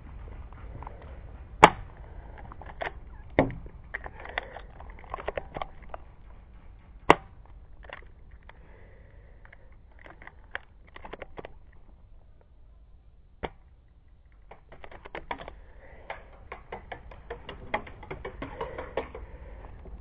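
Airsoft gunfire and gear handling: a few sharp cracks, the loudest about one and a half seconds and seven seconds in, among scattered clicks and rustling.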